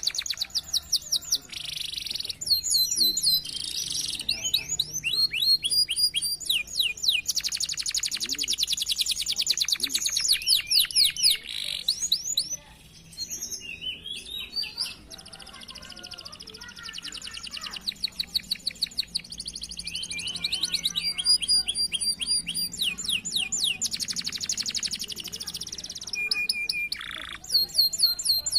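Domestic canary singing a long song of rapid trills: runs of fast repeated notes and quick sweeping phrases, high-pitched, with a short break about halfway.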